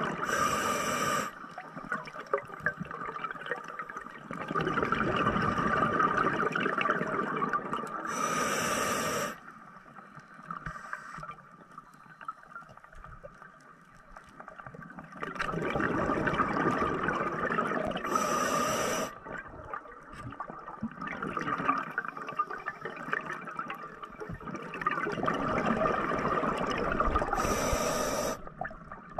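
Scuba regulator breathing underwater: four short hissing inhalations through the demand valve, with several seconds of rushing, bubbling exhaust between them. This is slow, regular breathing, about one breath every nine seconds.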